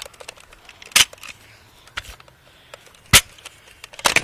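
A few sharp plastic clacks from a toy Nerf blaster being worked: one about a second in, another about two seconds later, and a quick run of clacks right at the end, over faint rustling.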